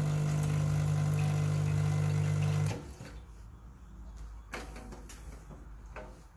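Quick Mill Rubino E61 espresso machine's vibratory pump humming steadily as water flushes through the group head, cutting off suddenly about two and a half seconds in. A few light knocks follow.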